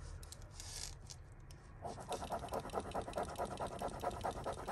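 A metal jewellery piece rubbed rapidly back and forth on a black touchstone, laying down a streak for testing whether it is silver. The quick, even scraping strokes start about two seconds in, after a few light clicks of chain being handled.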